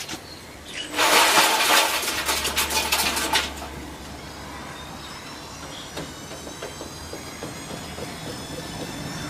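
Washing machine: a loud rattling clatter lasting a couple of seconds, then a motor whine that rises steadily in pitch as the drum speeds up toward spin.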